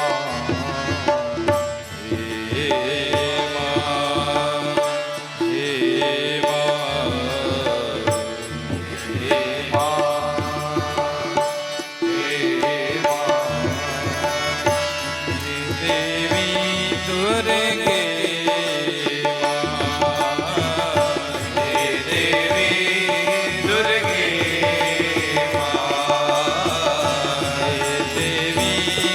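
Indian devotional background music with tabla and a wavering melodic line over a steady drone.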